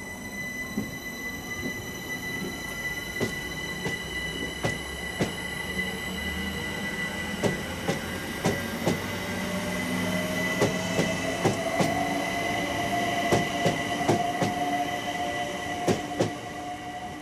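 London Overground Class 378 Electrostar electric train running past and pulling away, with a steady high whine and a motor whine that rises in pitch as it gathers speed. Its wheels click over the rail joints in quick pairs, more often toward the end.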